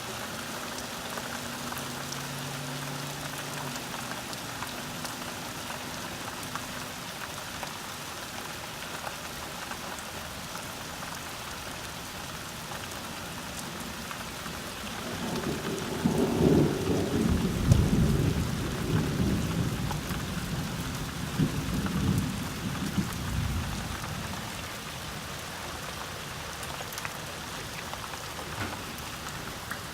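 Steady rain falling during a thunderstorm, with a long low rumble of thunder about halfway through that rolls on for several seconds before fading.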